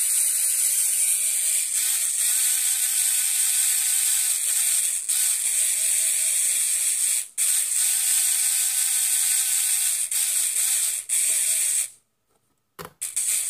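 Small yellow plastic-gearbox DC motor whirring under an electronic speed controller, its pitch wavering as the radio transmitter's stick is moved. It stops about twelve seconds in, followed by a couple of short clicks.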